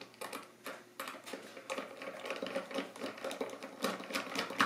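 Ball-end hex driver unscrewing the small screws that hold the ring burr of a LIDO hand coffee grinder, giving a run of small, irregular clicks and ticks.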